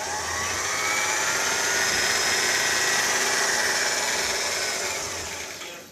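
Singer 288 sewing machine running fast. Its motor whine rises in pitch as it speeds up at the start, holds steady, then dies away near the end.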